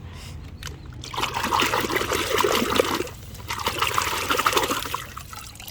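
Running water trickling and splashing over a toy truck being washed. It starts about a second in, breaks off briefly midway, and dies down near the end.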